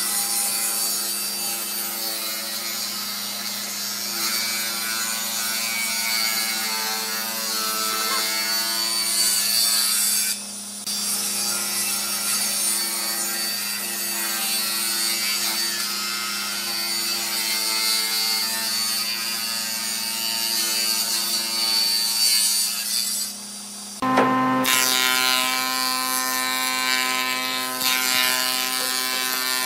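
Table saw ripping thin boards along the fence: the blade cuts steadily over the motor's hum, with the cutting dropping out briefly twice. About 24 seconds in it gives way to a thickness planer running, a steady hum of several tones.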